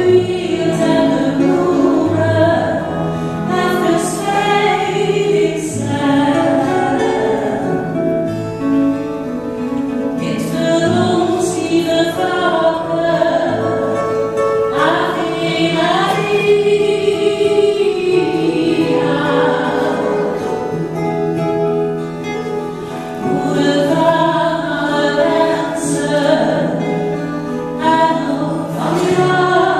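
A woman and a second singer singing a slow Dutch devotional song to two strummed acoustic guitars, their voices holding long, wavering notes.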